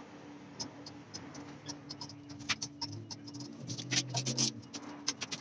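Irregular light metallic clicks and scrapes as nuts and a hand tool are worked onto the water pump housing studs of a Honda K24 engine block, with a quick run of clicks about four seconds in. A faint steady hum underneath.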